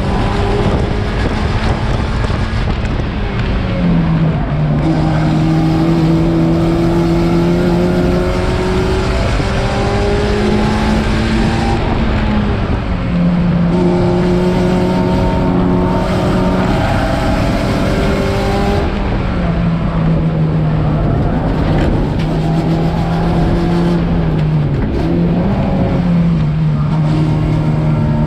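Race car engine under hard running, its note climbing slowly and then dropping, four or five times, over steady road and wind noise.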